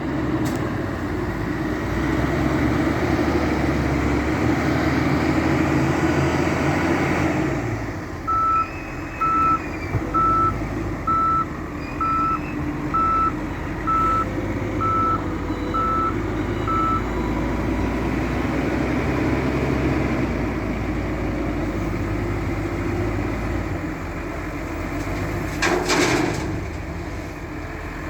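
Diesel engines of a wheel loader and dump truck working, louder for the first several seconds. A reversing alarm beeps about once a second, ten times, in the middle. A short hiss comes near the end.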